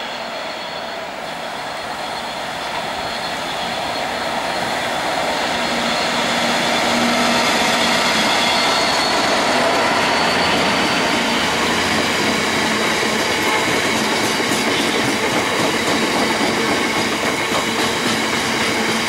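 Class 66 diesel freight locomotive, a two-stroke V12, approaching and passing, growing louder over the first several seconds. It is followed by a long rake of bogie tank wagons rolling by with steady wheel-on-rail noise.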